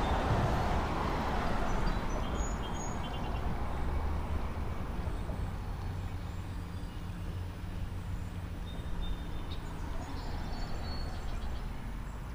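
Road traffic rumbling on the bridge overhead, loudest at the start and slowly fading, with a steady low rumble underneath. A few faint high chirps come about two to three seconds in.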